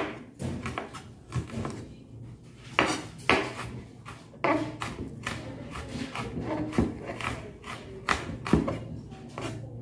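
Chef's knife chopping an onion on a cutting board: irregular sharp knocks of the blade hitting the board, a dozen or more spread unevenly, with soft cutting sounds between them.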